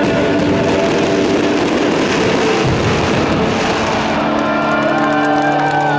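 Aerial fireworks bursting in quick succession: a dense, continuous barrage of bangs and crackles. About two-thirds of the way through, a steady held tone comes in under it.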